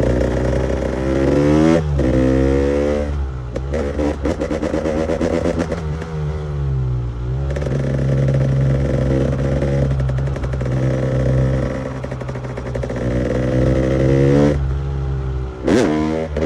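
KTM EXC 300 two-stroke enduro motorcycle engine revving hard: the pitch climbs and drops back sharply a couple of times, falls away, then holds fairly steady for several seconds before dropping and blipping up again near the end.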